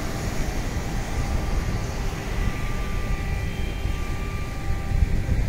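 Outdoor rumble of wind on the microphone over the steady rush of the sea at the shore. A faint thin steady whine joins in about two seconds in.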